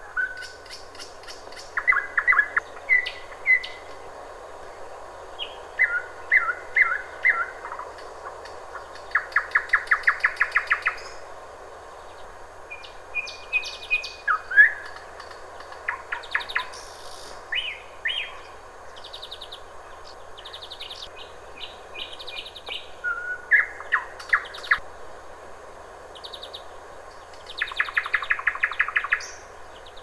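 Nightingale singing: varied phrases of whistles and clear notes separated by short pauses, with rapid rattling trills of about ten strokes a second, the loudest about ten seconds in and near the end. A steady faint hiss runs underneath.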